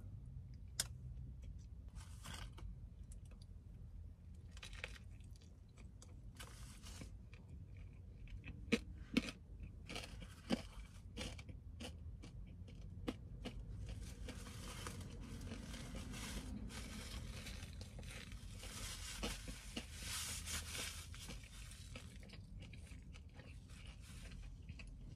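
Close-miked chewing and mouth sounds of a person eating, with scattered sharp clicks over a low steady hum.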